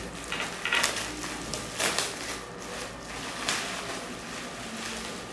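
Plastic bubble wrap crinkling and rustling as it is pulled open by hand and slid off a small boxed mouse, with irregular sharp crackles.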